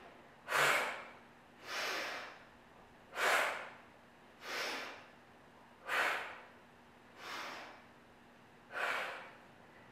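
A woman doing yogic fire breath: forceful, rhythmic breathing, about one breath every 1.3 seconds. Sharp, loud breaths alternate with softer ones, seven in all.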